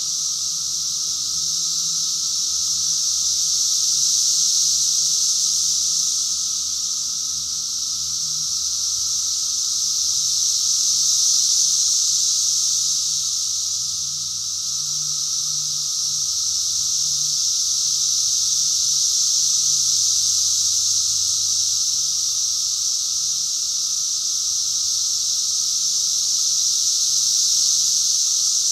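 Chorus of 17-year periodical cicadas: a loud, steady, shrill high hum that swells and eases slowly every several seconds, with a fainter lower hum running under it.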